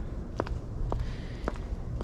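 Footsteps of a person walking on a brick walkway: three steps about half a second apart, over a steady low rumble.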